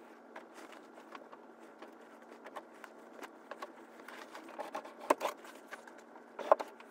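Household items being handled and put away: soft rustling with scattered light clicks and taps. Two sharper knocks come about five seconds in and again a second and a half later.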